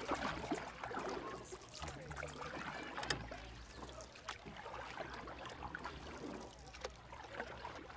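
Gentle lake water lapping and trickling close to the microphone, with small irregular splashes and a faint low hum beneath.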